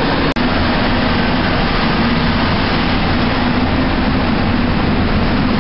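Steady, loud mechanical drone of heavy container-terminal machinery (automated guided vehicles and cranes), with a low hum running through it. It breaks off for an instant about a third of a second in.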